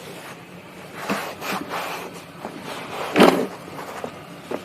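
A cloth towel rubbing and wiping over a car's plastic interior door panel in short scuffing strokes, the loudest about three seconds in.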